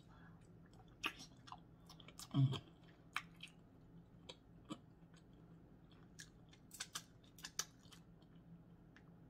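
Close-miked chewing of a person eating, with wet mouth clicks and smacks scattered throughout and one louder mouth sound about two and a half seconds in.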